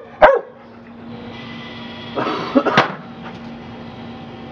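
A dog barks once, then an automatic ball-launching fetch machine whirs and throws a ball with a sharp clack about three seconds in, its motor humming steadily on afterwards.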